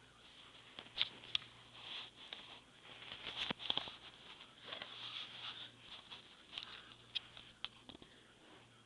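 Soft rustling and scattered sharp clicks as a tabby cat's fur and face brush against the microphone at close range, over a steady low hum.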